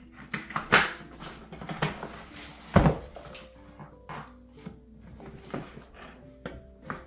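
Cardboard paint-sprayer box being handled and turned over on a granite countertop: scuffs and knocks, with one loud thump a little under three seconds in, over soft background music.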